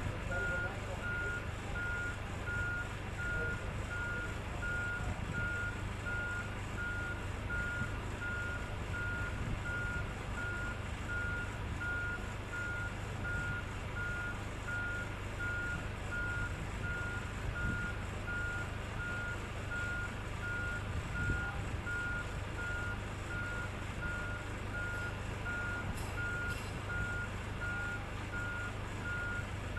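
Motion-warning beeper on heavy yacht-handling machinery sounding a steady run of evenly spaced high beeps, over the low, steady hum of the machine running.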